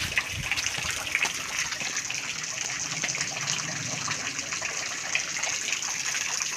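A small waterfall with only a low flow of water coming down, splashing steadily.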